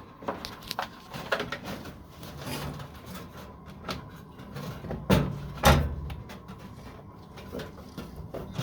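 Motor control unit enclosure being handled and snapped into a washer's bottom frame: scattered clicks and knocks, with two louder knocks a little past the middle.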